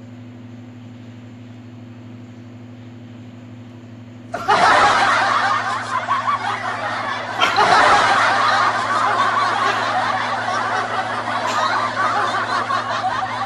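A toy poodle growling and snarling, angered at being disturbed at its food. The growling starts suddenly about four seconds in, after a steady low hum.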